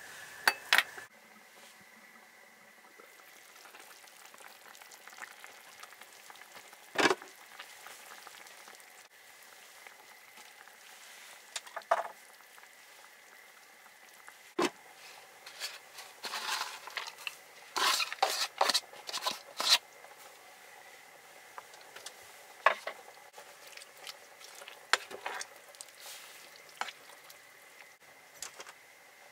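Cooking at a stovetop pot: a utensil stirring and clinking against the pot in scattered knocks, with a burst of busier clattering about halfway through, over a faint steady tone.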